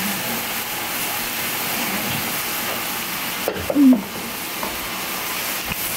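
A steady hiss, with a brief squeak about four seconds in.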